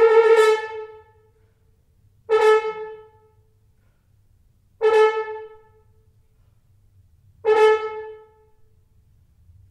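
Unaccompanied French horn: a long loud note dies away about a second in, then three short accented notes on the same pitch follow, about two and a half seconds apart, each ringing briefly as it fades.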